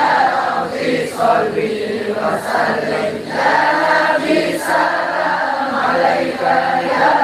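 A group of men singing an Islamic sholawat together in unison, amplified through the stage loudspeakers.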